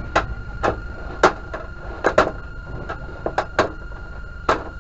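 About ten irregular clicks and light knocks as hands work the frame and diffuser sheet of a Samsung 32D18D LED TV that is being taken apart.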